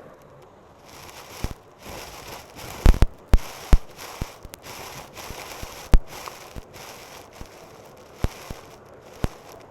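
Vacuum cleaner sucking up crunchy debris: sharp crackles and pops as bits are pulled in, over a steady rushing hiss of suction that grows louder about a second in. The loudest cluster of pops comes about three seconds in.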